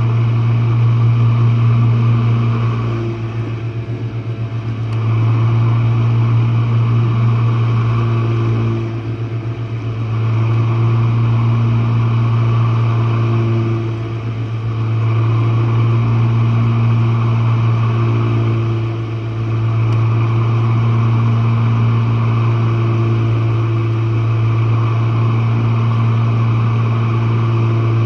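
Jenn-Air dishwasher running, heard from the bottom of the machine: a loud, steady motor hum that swells and dips about every five seconds.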